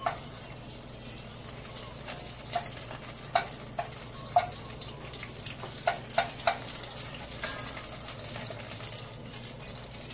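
Butter melting in olive oil in an enamelled pot, sizzling gently, while a wooden spoon stirs it. The spoon knocks against the pot about eight times in the middle of the stretch.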